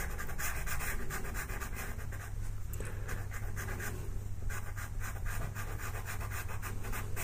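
Pastel pencil scratching over textured paper in quick, repeated back-and-forth shading strokes.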